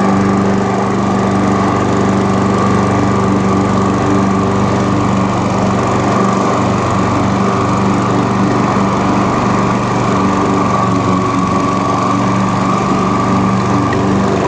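Hayter Harrier 56 Pro petrol rotary lawnmower engine running steadily at working speed.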